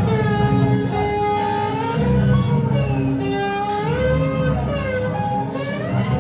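Soundtrack music led by guitar: long held notes that bend slowly up and down in pitch, over a dense, steady low accompaniment.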